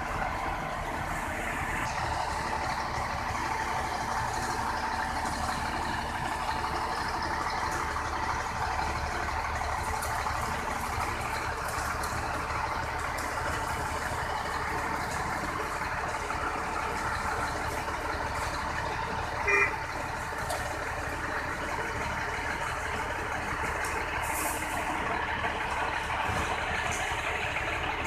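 Concrete mixer truck running steadily, with a short beep about two-thirds of the way through and a brief high hiss a few seconds later.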